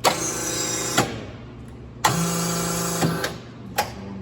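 Amada HA250W bandsaw's cylinders being cycled in manual mode: two strokes, each about a second long, a steady mechanical hum that starts and stops with a clunk, and a small knock near the end.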